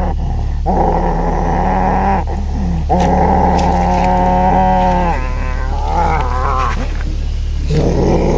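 A person's long, drawn-out growling cries, as from someone in a possession trance during a mediation: two long held cries, then a shorter wavering one about six seconds in, over a steady low hum.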